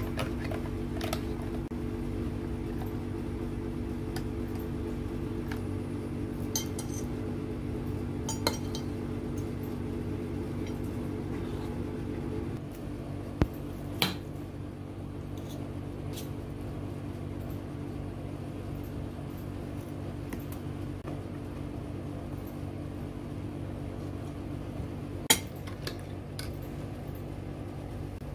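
Metal utensils clinking against a ceramic plate and a metal straw stirring and tapping inside a glass, several separate sharp clinks over a steady low hum.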